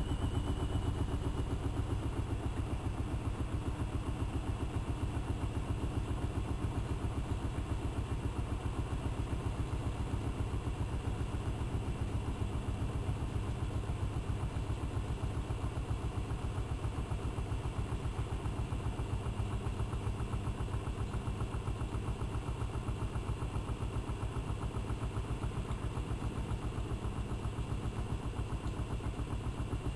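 AEG Electrolux Lavamat L6461 washing machine spinning its drum at a steady speed: a steady, high motor whine over a fast, even pulse and a low hum.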